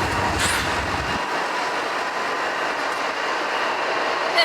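A freight train rolling past on the rails, a steady rush of wheel and rail noise. The deep rumble drops away about a second in.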